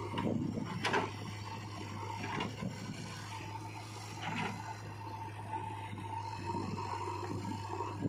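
Diesel engines of a JCB 3DX backhoe loader and tractors running steadily, with scraping and a few sharp knocks as the backhoe digs and tips soil into a tractor trolley.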